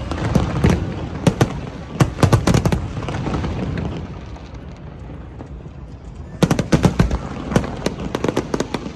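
Fireworks display: rapid volleys of sharp bangs and crackles. They ease into a lull of a few seconds in the middle, then a dense volley starts again in the last few seconds.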